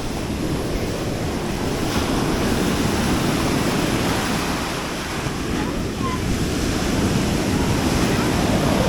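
Ocean surf breaking and washing up the beach, with wind buffeting the microphone: a steady rushing that swells gradually toward the end.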